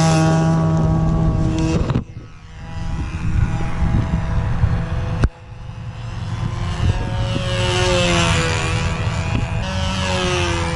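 Control-line model airplane engine running at a steady high pitch, cut off abruptly about two seconds in. Then wind noise with a sharp click, and from about halfway the engine again, its pitch rising and falling as the plane circles on its lines.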